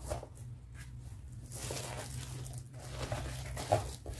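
Handling noise as doll bags and pouches are moved about on a table: irregular bursts of rustling and crinkling, with one sharp tap a little before the end, over a low steady hum.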